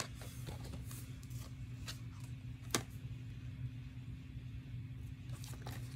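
Plastic DVD cases being handled, with faint clicks and one sharper click about three seconds in, over a steady low electrical hum.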